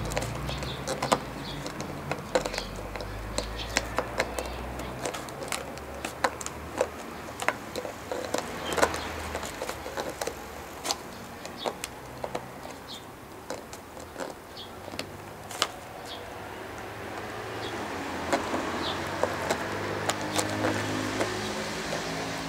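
Shiba Inu gnawing a clear plastic PET bottle, its teeth working at the neck and cap: irregular crackling clicks and crinkles of the thin plastic.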